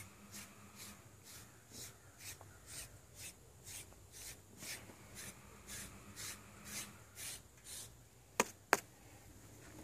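SleekEZ deshedding blade raking through a dog's coat with a rasping stroke, about two strokes a second. Near the end the strokes stop and there are two sharp clicks.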